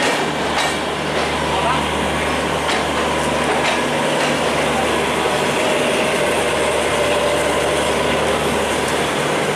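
Steady low hum of a standing passenger train's diesel engine idling, with people talking in the background.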